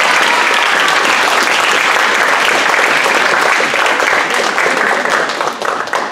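A small group of spectators clapping, the applause dying down near the end.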